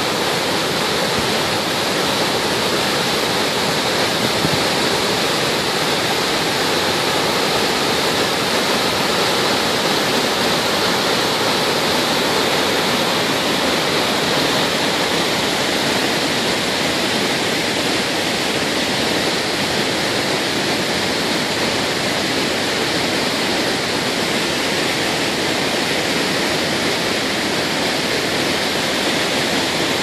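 Wide tiered waterfalls cascading over rock ledges into a pool: a steady, even rush of falling water.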